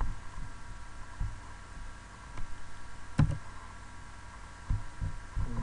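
A few computer mouse clicks and soft knocks, the loudest about three seconds in, over a steady electrical hum and hiss.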